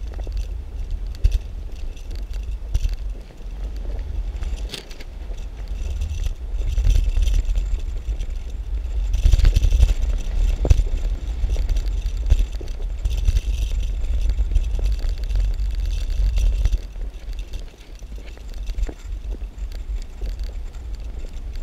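Wind buffeting the microphone of a camera on a moving bicycle, a steady low rumble, with tyre noise and small rattles and clicks from the bike. The tyre noise turns to a louder hiss about halfway through as the tyres roll over gravel.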